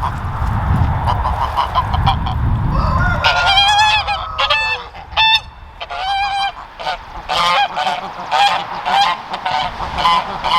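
Domestic geese honking, many calls in quick succession and overlapping, starting about three seconds in. Before that a low rushing noise runs under a softer chatter of calls.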